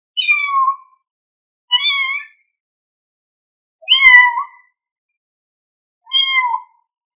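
A kitten meowing four times, high-pitched calls about two seconds apart, the third the loudest: a hungry kitten calling for its mother.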